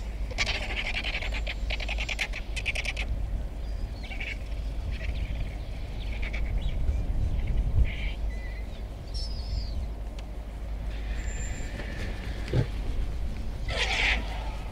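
Vultures squabbling, with harsh rapid chattering calls for the first few seconds, scattered short calls, and a hoarse burst near the end. A small bird gives a short rising whistle partway through, over a steady low rumble.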